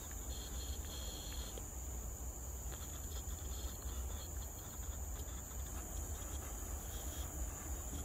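Tropical forest ambience: a steady high-pitched drone of insects, with a brief higher chirping about half a second in and again near the end, over a low rumble on the microphone.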